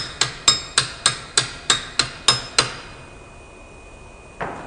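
Hammer blows on a metal part of a paper cup machine's mold assembly, tapping a part back into place at about three strikes a second, each with a bright metallic ring. The strikes stop about two and a half seconds in, and a brief scrape follows near the end.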